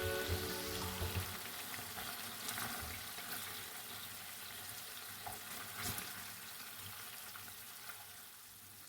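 Chicken pieces frying in a pan, a steady sizzle with a few sharp knocks, growing gradually quieter.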